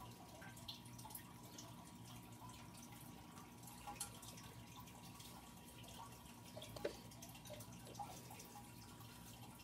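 Near silence with a few faint, light plastic clicks: fuse beads being set one by one onto a plastic pegboard.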